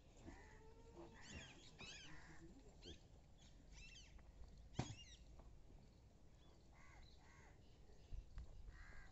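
Near silence, with faint scattered animal calls and short high chirps, and one sharp knock about five seconds in.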